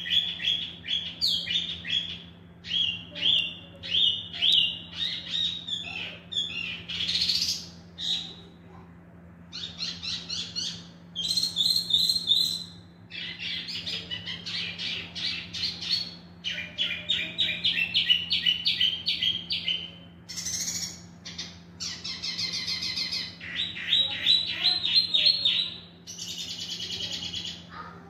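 A caged male wambi mini (tieumi) songbird singing vigorously: fast runs of repeated high chirping notes in loud phrases with short pauses between them.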